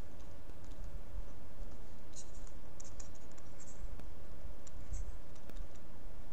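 Stylus scratching on a pen tablet as words are handwritten: short scratchy strokes in scattered bunches, with a few light clicks, over a steady low hum.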